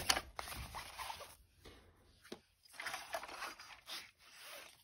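Handling noise: a paper instruction booklet sliding and rustling as it is laid down, and a snap-together plastic gear robot toy being picked up and turned over, with a sharp click at the start and a few light knocks.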